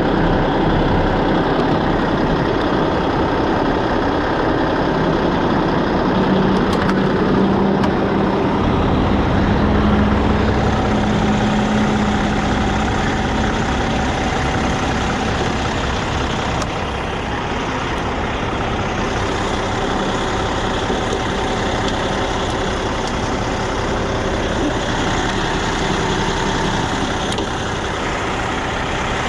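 Semi truck's diesel engine running steadily, with a low steady hum that comes and goes partway through.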